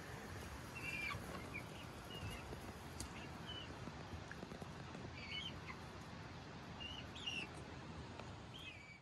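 Young chickens giving soft, scattered peeps and chirps, about eight short calls spread over several seconds, over a faint steady hiss.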